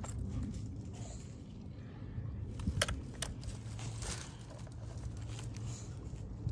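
Faint clicks and knocks of hands handling a small top-handle chainsaw whose engine is not running, over a low steady hum. The loudest knock comes a little under three seconds in.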